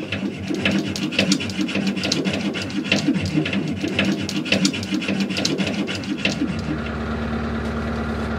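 Hand saw worked back and forth at about two strokes a second, cutting through a metal fixing on a narrowboat's solar panel. About six seconds in the sawing stops and a steady engine hum takes over.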